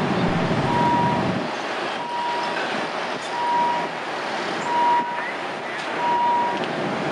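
Electronic warning beeper sounding a steady single-pitch beep about once every second and a quarter, over the noise of a running vehicle engine, with a heavier low rumble in the first second or so.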